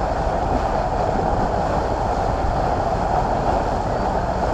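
Passenger boat's engine running steadily underway, a constant low drone heard on board, with water and wind noise mixed in.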